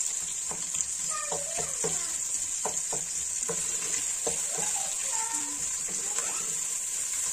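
Chopped onion and green capsicum frying in oil in a metal pot, a steady sizzle, with a wooden spoon scraping and knocking against the pot as they are stirred.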